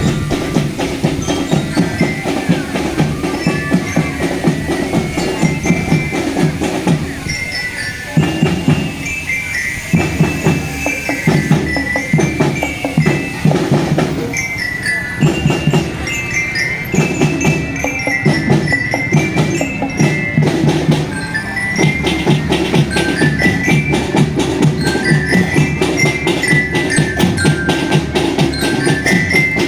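Marching drum band playing: a glockenspiel-style mallet melody of quick single notes over steady snare and bass drumming, with brief breaks in the drumming about eight and fourteen seconds in.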